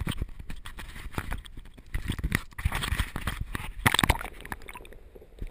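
Sea water sloshing and gurgling around an action camera as it is dipped under the surface beside the boat, with scattered knocks and clicks and a louder cluster of knocks about four seconds in.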